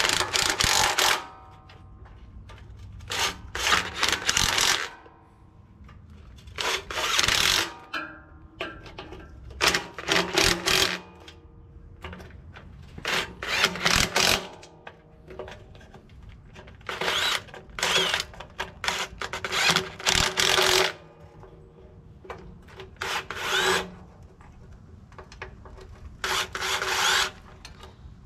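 Cordless drill-driver running in about ten short bursts of a second or so, with a whine in each, as it runs down the bolts on a John Deere tiller's side chain-case cover.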